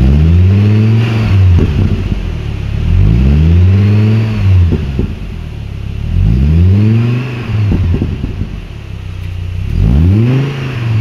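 Hummer H3 engine revved four times, each rev rising in pitch and falling back, through a trial muffler held against the tailpipe while different mufflers are being auditioned.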